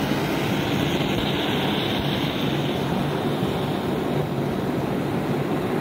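Antique brass pressurized liquid-fuel blowtorch burning: the flame at the burner makes a steady, unbroken rushing hiss with a low rumble.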